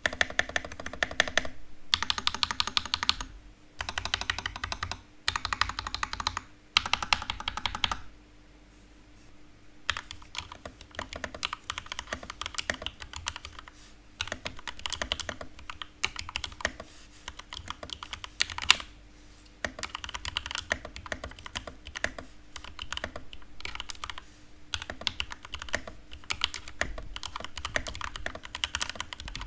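Typing sound test on a freshly built Geek GK61 60% hot-swap mechanical keyboard with Noir Rose switches, JWK Panda stabilizers and PBT keycaps. Quick runs of keystrokes in short bursts, a brief pause about eight seconds in, then steady continuous typing.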